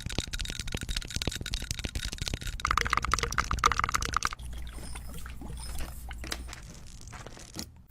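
Fridge-restocking handling noises: rapid light clicks and clatter of containers and packaging being set down and moved, with a brighter crackling stretch in the middle that stops suddenly, then softer clicks.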